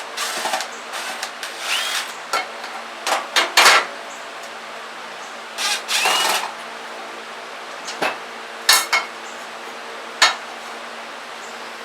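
Hard objects being handled and set down: irregular knocks, clicks and scraping, with two short rising squeaks, over a steady low hum.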